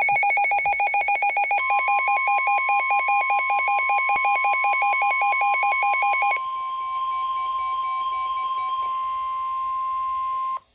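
NOAA Weather Radio warning alarm tone: a steady, loud single tone near 1 kHz held for about nine seconds and cut off abruptly, signalling that a warning follows. For the first six seconds a rapid electronic beeping alarm, about ten beeps a second, plays over it.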